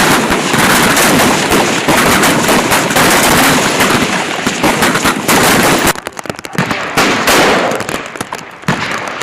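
Many rifles firing at once on a firing line, shots overlapping in a dense crackle, then thinning to scattered single shots about six seconds in.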